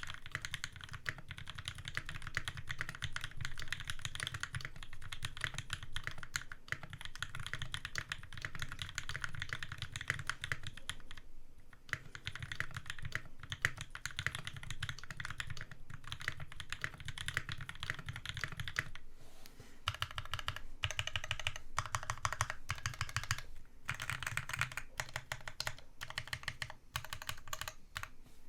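Continuous typing on an AEBoards Constellation custom mechanical keyboard fitted with lubed NovelKeys Cream linear switches on a 1.5 mm brass plate, O-ring gasket mounted, with GMK keycaps. It is a steady stream of keystroke clacks, with brief pauses about 11, 19 and 24 seconds in.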